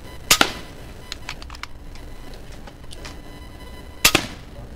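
Two air rifle shots about three and a half seconds apart, each a sharp crack, with a few light clicks between them.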